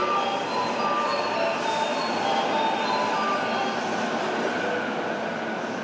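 E233 series electric commuter train running, heard from inside a motor car: a steady rumble of wheels and running gear, with short high tones coming and going above it.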